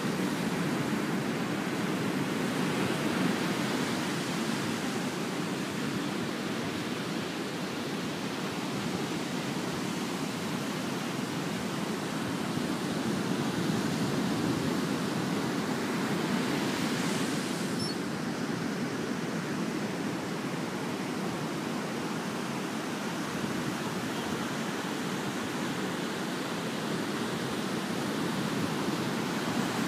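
Steady wash of ocean surf breaking on a sandy beach, with a brief swell of hiss a little past the middle.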